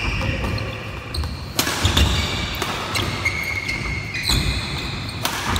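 Badminton doubles rally on a wooden indoor court: a few sharp racket hits on the shuttlecock, with court shoes squeaking and feet thudding on the floor between strokes.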